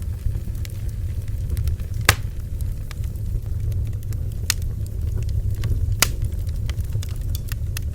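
Bonfire burning: a steady low rumble of the flames with sharp, irregular wood crackles and pops, the loudest a few seconds apart.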